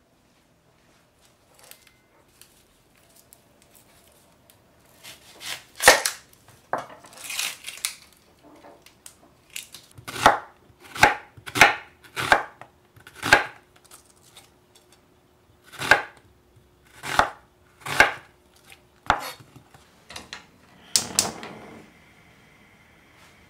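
Knife slicing onions on a wooden cutting board: about a dozen crisp, separate cuts at uneven spacing. Near the end a steady hiss from a lit gas stove burner takes over.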